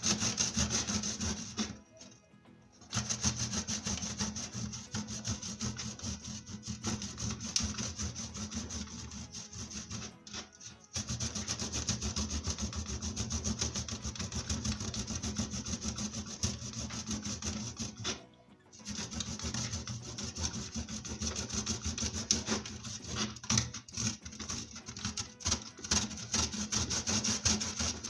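Ginger root being grated by hand on a stainless steel box grater: a fast, continuous rasping of rapid back-and-forth strokes, stopping briefly about two seconds in, again around the middle and once more a little later.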